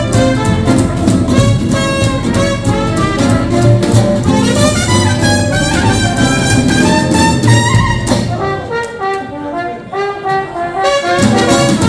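Live hot swing jazz band playing, with brass horns such as trumpet or cornet leading over a rhythm section. The high end drops out and the sound thins about eight seconds in, then the full band comes back in near the end.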